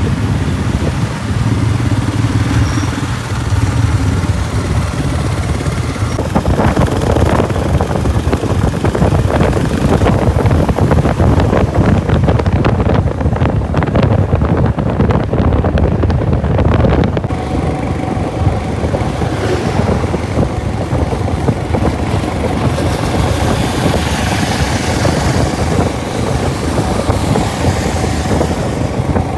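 Motorcycle engine running while riding an off-road track, a steady low hum with a rough, crackling clatter through the middle stretch.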